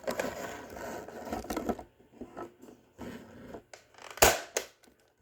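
Scraping and rattling as a Nerf blaster is handled and aimed, then a sharp mechanical snap about four seconds in, followed by a smaller click. The blaster fires with no dart loaded: it is empty.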